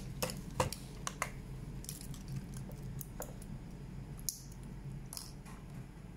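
Scattered light clicks and taps, about ten in six seconds, as a small digital pocket scale is handled, set down and switched on, over a faint steady hum.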